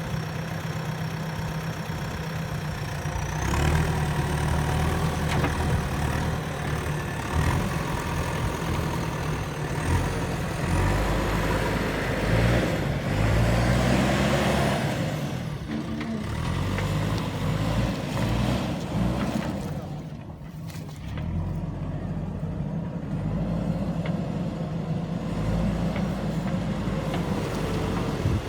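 JCB 3DX backhoe loader's diesel engine running, its revs rising about four seconds in and again between about ten and fifteen seconds as the machine works, then easing off briefly around twenty seconds.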